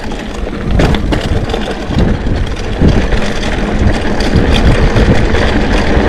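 Mountain bike descending a loose, rocky gravel track: tyres crunching over stones and the bike rattling, with wind rushing over the action camera's microphone.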